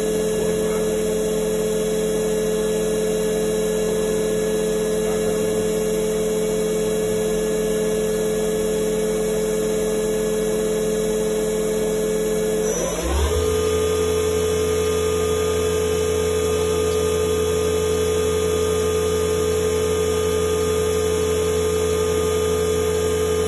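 Spindle of a Samsung MCV50 CNC vertical machining center running free at a steady speed with a steady whine. About halfway through it steps up quickly to a higher speed and holds, and near the end it starts to speed up again with a rising whine.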